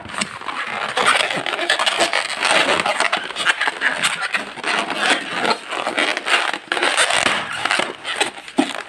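Inflated latex modelling balloons being twisted and squeezed by hand: continuous rubbery rubbing and scraping with many small crackles.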